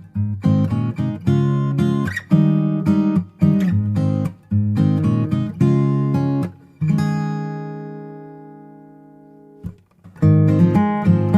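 Background music of acoustic guitar, plucked and strummed chords. Past the middle, one chord is left ringing and fades out for a few seconds, then the playing starts again.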